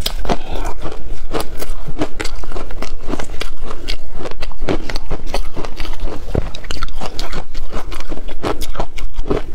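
Crushed ice being bitten and chewed, a rapid, irregular run of crunches several per second, picked up close by a lapel microphone.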